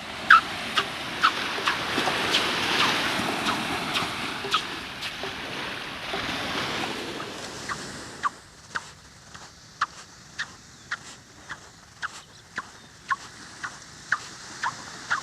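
Footsteps on squeaking quartz sand: each step gives a short, high squeak, about two a second. A steady rush of surf lies under the first half and falls away about eight seconds in.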